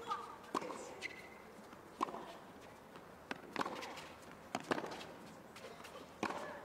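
Tennis ball being struck by racquets and bouncing on a hard court during a doubles rally: a string of sharp pops, roughly one every half second to a second, some in quick pairs.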